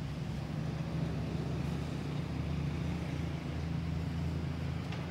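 A steady low hum of a running engine, even in level throughout.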